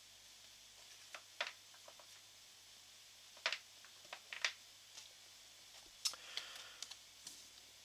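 Playing cards being handled at a table: scattered soft clicks and ticks, with a brief rustle as a card is pulled out and lifted.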